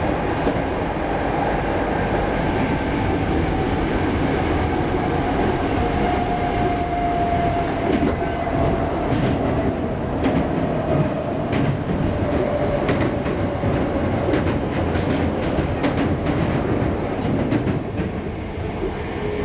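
Hankyu Kobe Line electric train running, heard from inside the car: a steady rumble of wheels on track, with a faint whine that slowly falls in pitch as the train slows, and from about eight seconds in a run of sharp clicks over the rail joints.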